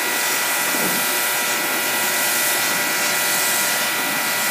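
Kränzle pressure washer spraying a high-pressure rinse through its normal lance: a steady hiss of the water jet over the continuous whine of the pump.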